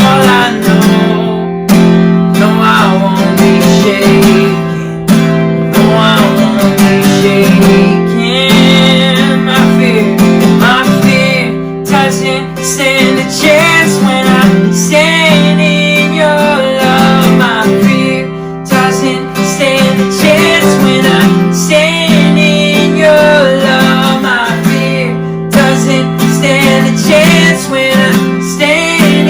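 Contemporary worship song played on a strummed acoustic guitar, with a voice singing the melody.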